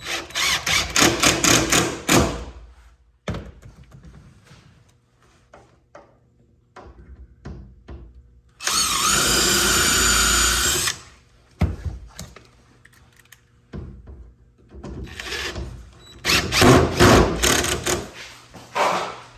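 Power drill running for about two seconds near the middle, its motor whine wavering under load, between stretches of rapid clattering knocks and small clicks from work on wood.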